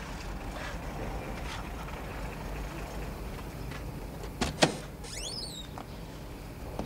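Car engine idling with a low steady rumble in the street; about four and a half seconds in, a car door shuts with two quick clunks, followed by a brief high chirping.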